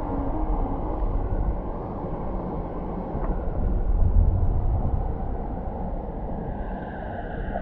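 Muffled low rumbling and churning of stream water heard by a camera held underwater, with the higher sounds dulled.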